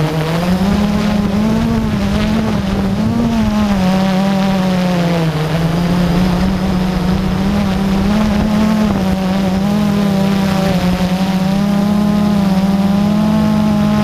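Blade QX3 quadcopter's electric motors and propellers buzzing, heard from on board, with the pitch wavering up and down as the drone speeds and slows its rotors to hold and shift position.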